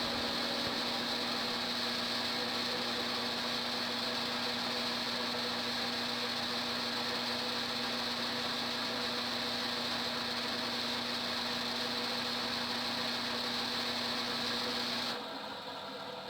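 Homemade lathe's electric motor running with a steady hum while it spins a pool cue for finish sanding. The hum cuts off abruptly near the end, leaving a fainter hum.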